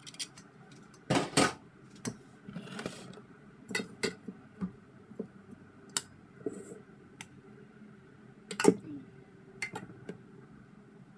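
A spatula scraping and knocking against stainless steel mixing bowls as batter is scraped from one bowl into another, with scattered clinks and a few sharper knocks, the loudest about a second in and again later on.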